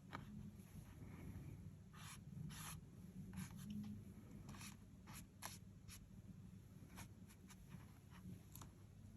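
Faint scratchy strokes of an art tool on paper as colour is laid on: about fifteen short, irregularly spaced passes, mostly from about two seconds in, over a steady low background hum.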